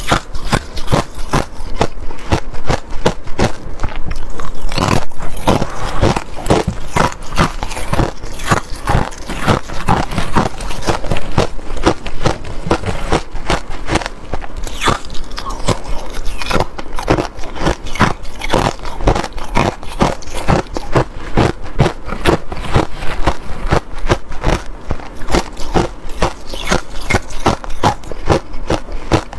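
Pieces of ice being bitten and chewed close to a lapel microphone: loud, sharp, irregular crunches following one another in quick succession.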